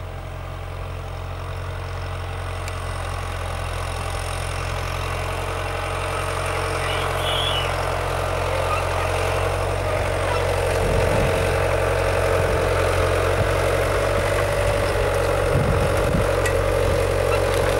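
Small crawler tractor's engine running steadily under load while it ploughs, getting louder as it comes closer. A higher-pitched mechanical whine joins in about ten seconds in.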